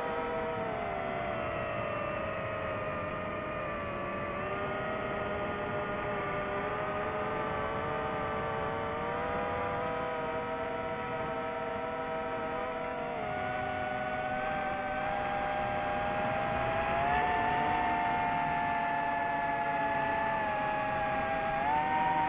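Multirotor drone's propellers whining steadily, several tones drifting up and down in pitch as the motors change speed, rising near the end.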